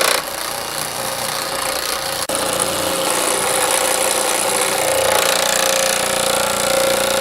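Baileigh PH-19 power hammer running steadily, its ram rapidly hammering a sheet-metal panel through a beading die to roll a bead, with a steady motor hum beneath, briefly interrupted about two seconds in.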